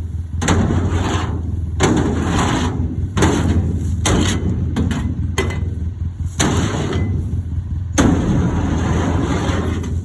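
Leftover corn being scraped out of a grain dryer: about seven loud scraping and banging strokes of a tool on sheet metal at irregular intervals, over a steady engine hum.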